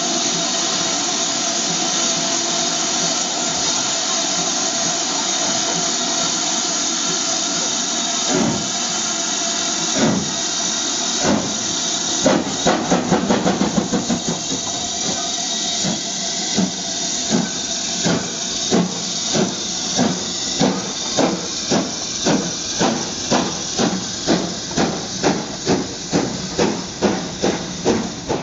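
BR Standard Class 7 'Britannia' Pacific steam locomotive hissing steam at a stand, then starting away: a few slow exhaust beats, a quick flurry of beats about twelve seconds in as the driving wheels slip, then regular chuffs that gradually quicken as it gets its train moving.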